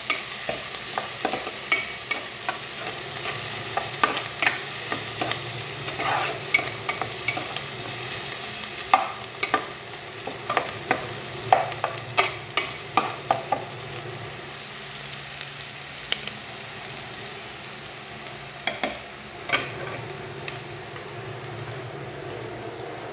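Chopped food sizzling in hot oil in an aluminium pressure-cooker pot while a metal spoon stirs it, scraping and knocking against the pot's sides. The knocks come thick and irregular for most of the first half, thin out after that, and come back a few times near the end while the sizzle goes on steadily.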